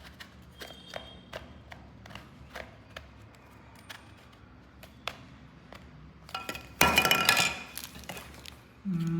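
Hard plastic clicking and tapping as a hair dryer's nozzle attachment is handled and tried against the dryer's barrel, with one louder scraping clatter of plastic about seven seconds in.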